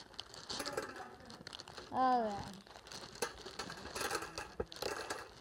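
Plastic packaging crinkling, with the small clicks of the bingo set's plastic parts being handled. A short vocal sound comes about two seconds in.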